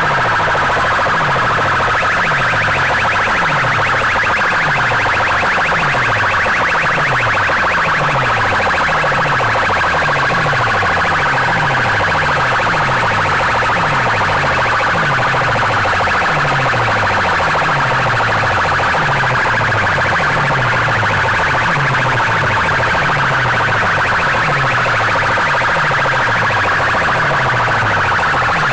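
Very loud, distorted electronic music blaring from banks of horn loudspeakers: a harsh, siren-like midrange over a falling bass sweep that repeats a little over once a second.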